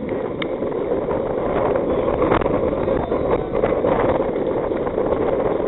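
Wind buffeting the microphone, a loud steady rumble that starts suddenly, with a single sharp crack of bat on ball about half a second in.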